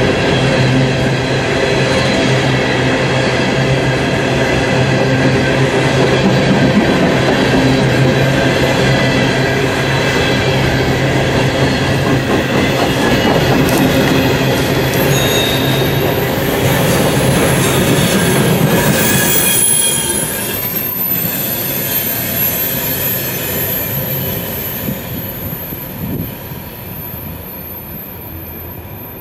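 Empty steel coal hopper cars rolling past close by, wheels rumbling on the rails with a steady squealing whine. After about twenty seconds the sound drops off and keeps fading as the train moves away.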